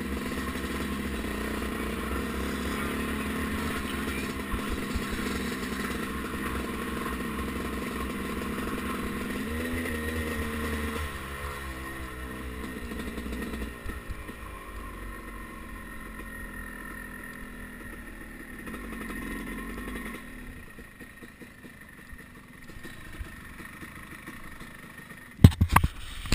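1989 Suzuki RM250 two-stroke single-cylinder engine running steadily at low revs, its pitch wavering about ten seconds in, then growing weaker and dying away about twenty seconds in. A few sharp knocks near the end.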